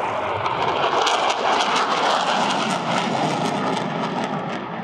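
Jet fighters flying past: a loud, steady rushing engine noise that builds in the first second, with crackling over the top.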